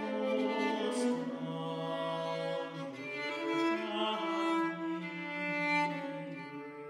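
A tenor voice singing a slow medieval Trecento song, with a bowed vielle playing the accompaniment beneath it.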